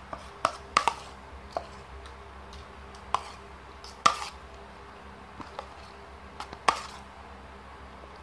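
A spoon clinking against a plate while someone eats: a handful of short, sharp clinks at irregular intervals.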